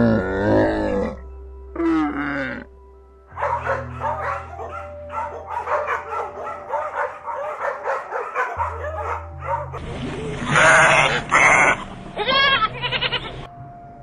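A camel's deep, wavering groaning calls, then a run of shorter repeated calls and a dog's calls near the end, over background music.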